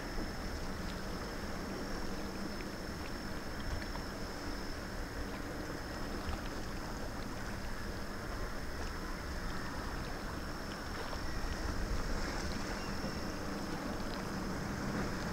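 Steady seaside ambience: wind buffeting the microphone and sea water lapping against the concrete pier, with a faint steady high-pitched whine.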